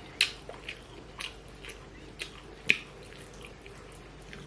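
A person chewing food close to the microphone, with short wet mouth clicks and smacks about twice a second.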